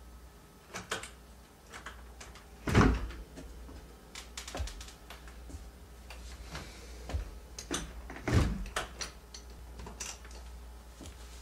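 Apartment front door handled: clicks and rattles from the knob and lock, with two heavy thuds, about three seconds in and again past eight seconds.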